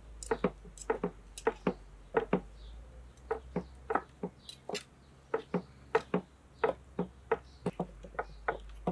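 A broad kitchen knife chopping on a wooden cutting board: sharp, uneven knocks at about two a second.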